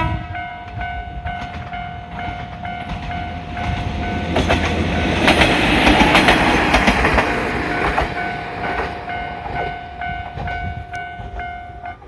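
Japanese level-crossing warning bell ringing in steady, evenly repeated strokes as a Kanto Railway Ryugasaki Line diesel railcar passes over the crossing. The wheels rush and clack over the rails, loudest in the middle, then fade. The bell stops just before the end.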